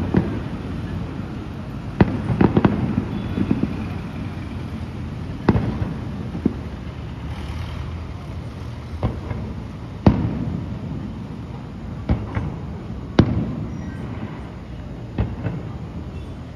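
Aerial firework shells bursting: about a dozen sharp bangs at irregular intervals, some in quick pairs, each trailing off in an echoing rumble.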